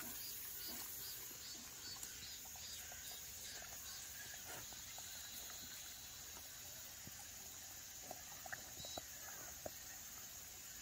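Dogs chewing and lip-smacking on cherry tomato pieces: faint, scattered clicks.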